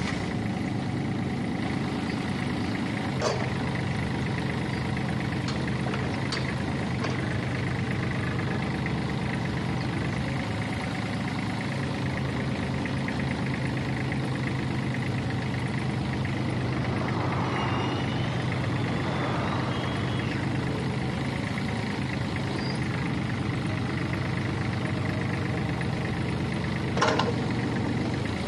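Kubota U-30-5 compact excavator's diesel engine running steadily while the boom, arm and bucket are worked. A few short knocks from the machine break through, the loudest near the end.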